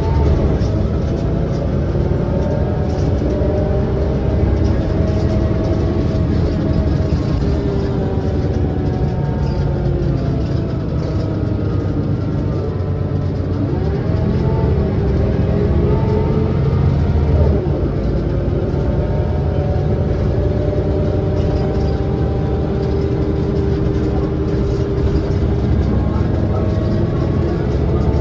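Interior of a 2003 Scania L94UB bus on the move: the rear-mounted diesel engine runs under load over steady road rumble. Its note rises and falls as the bus accelerates and eases off, with a clear climb in pitch about halfway through.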